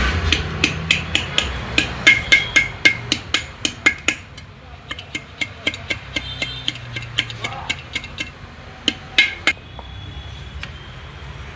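Sharp metal-on-metal taps from gearbox parts, such as shift rods and shafts, being knocked into place during manual gearbox assembly. The taps come about three or four a second for the first four seconds, each with a short ring, then thin out to a few scattered taps and a quick pair near the end.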